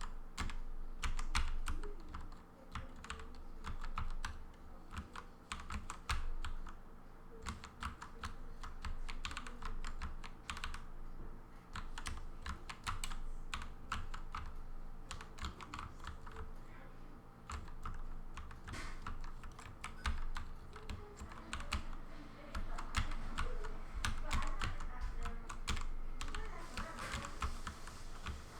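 Rapid, irregular clatter of keystrokes on a Redragon K552 mechanical keyboard with 15-gram springs and 3D-printed flat keycaps, keys pressed together in chords for stenography.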